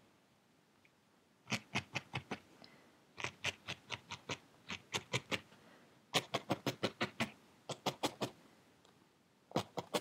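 A felting needle jabbing repeatedly through wool into a foam pad, in quick runs of about six pokes a second with short pauses between the runs.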